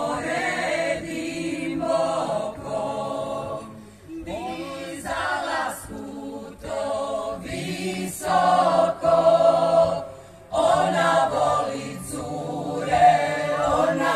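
A large mixed choir of women's, men's and children's voices singing together in phrases, with short breaks about four seconds in and again near ten seconds.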